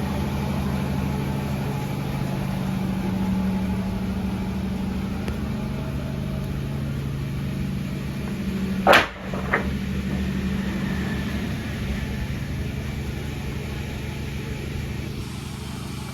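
An engine idling steadily, with a sharp, loud knock about nine seconds in and a smaller one just after.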